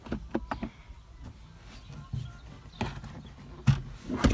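Plastic car console trim clicking and knocking as it is handled and fitted back in place: a few light clicks at the start, then two sharper knocks near the end.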